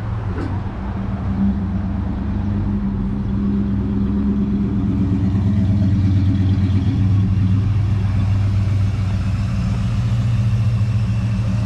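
Old Chevrolet Viking truck's engine running as the truck drives slowly across the lot, a steady low engine note that grows louder over the first several seconds.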